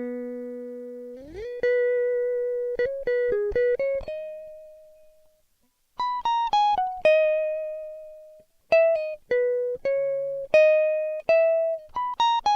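Solo guitar background music: single plucked notes in an unhurried melody, with a slide up in pitch about a second in and a short break in the middle.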